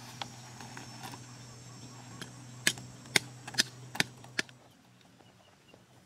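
A machete cutting thin branches gives about five sharp cracks in under two seconds, over a steady high insect drone and a low hum. The cracks and the drone stop about four and a half seconds in.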